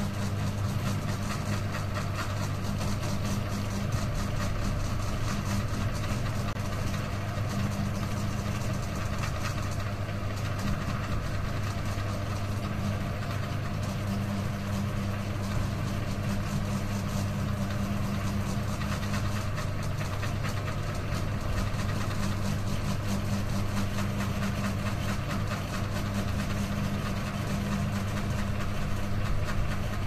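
Ceiling fan running, its motor giving a steady low hum under the even whoosh of the blades.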